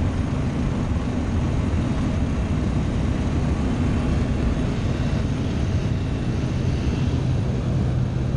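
Propeller aircraft engine running with a steady drone as the plane moves over the grass strip.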